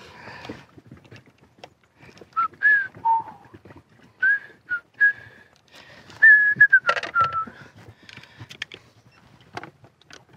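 A person whistling a short tune of a dozen or so notes, the last one held and falling, among scattered light metallic clicks of hand tools.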